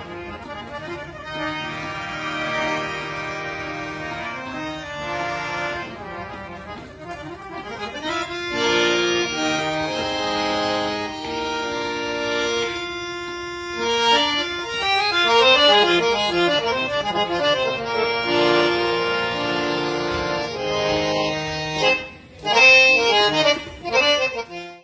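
Harmonium playing solo: held chords and notes with quick melodic runs, dropping away briefly near the end.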